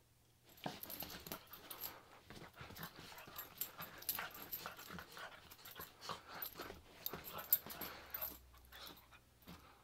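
Pug playing wildly on a bed: a quick, irregular run of scuffling on the covers mixed with the dog's own breathy play noises, starting about half a second in and dying down near the end.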